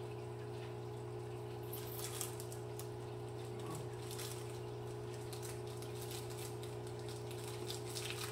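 Clear plastic snack-cake wrapper crinkling in the hands, in quick irregular rustles from about two seconds in, over a steady low hum.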